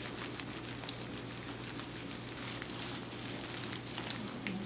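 Faint crinkling and rustling of a paper pad and a plastic gown as gloved hands handle the arm, with many small ticks over a steady low hum.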